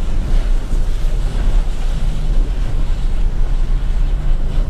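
Steady low rumble of a truck driving across snow-covered lake ice, heard from inside the cab: engine and tyre noise with no change in pace.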